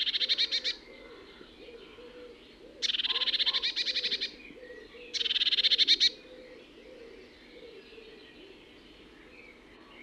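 Eurasian blue tit calling: three bursts of rapid, snickering chirps, about a second each, the first at the very start, then about 3 and 5 seconds in.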